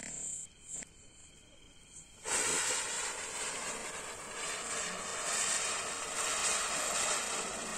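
Diwali chakri (spinning firework) catching about two seconds in and throwing sparks with a steady, loud hiss. Crickets chirp faintly beforehand.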